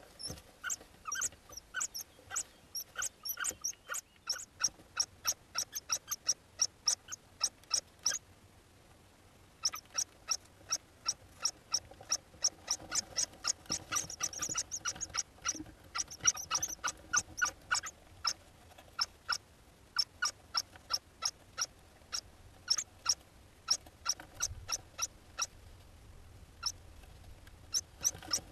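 Hoopoe chicks calling in the nest box: a long run of short, squeaky notes, about four a second, with a short pause about eight seconds in and a denser, louder stretch in the middle.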